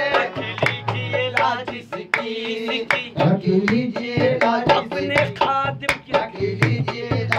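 Qawwali: male voices singing a devotional song over a dholak drum beating a steady quick rhythm.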